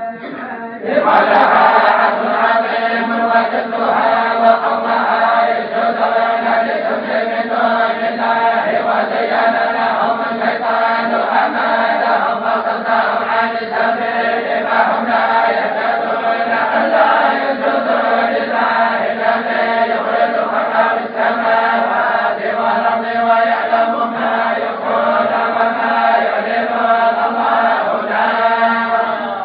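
Group of voices chanting in unison, a Moroccan tolba collective recitation: one long sustained chant that resumes about a second in after a short breath pause and dips again at the end.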